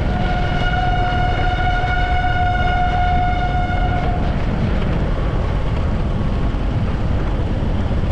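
Train horn sounding one long steady blast, briefly broken right at the start, that stops about four seconds in, over a continuous low rumble.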